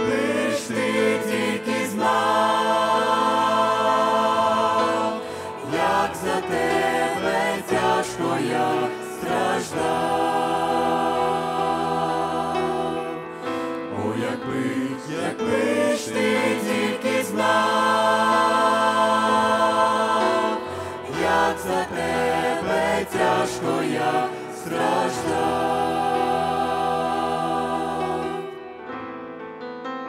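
A mixed group of men's and women's voices singing a slow hymn in harmony into microphones, in sustained phrases. Near the end the singing stops and a quieter accompaniment carries on.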